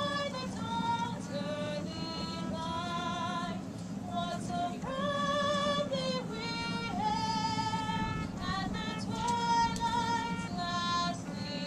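High-school choir singing the national anthem, with high voices leading on long held notes with vibrato.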